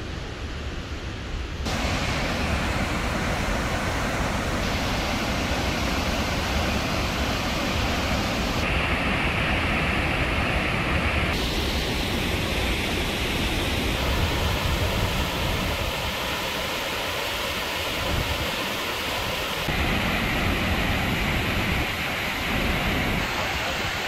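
Heavy, steady rushing noise of Kinuseo Falls, a 70-metre waterfall on the Murray River, with strong low rumble from spray-laden wind on the microphone near its base. The noise is lighter for the first couple of seconds, then louder, and changes in tone abruptly several times.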